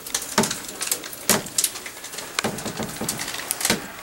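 Irregular crackling and clicking of a plastic pouch of cat treats being handled, several sharp crinkles a second.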